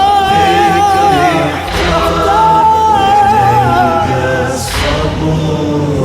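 Wordless singing from a Shia latmiya lamentation chant: long held notes wavering with vibrato, each lasting about two seconds, over a steady low vocal hum.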